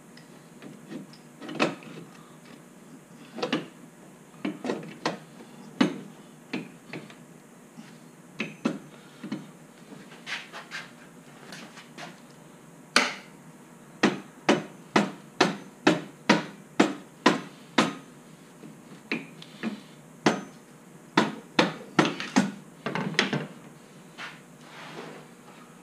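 A hammer striking repeatedly: scattered single blows at first, then a quick run of about two to three sharp blows a second for several seconds, then a few more.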